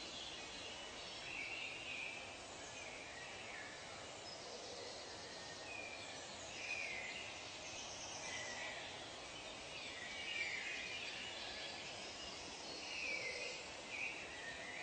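Wild birds calling in a natural soundscape: many short chirps and falling whistles, scattered and overlapping, over a steady background hiss.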